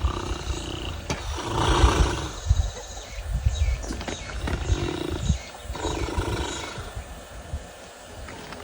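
A person snoring loudly in sleep: a run of snores, one every second or two.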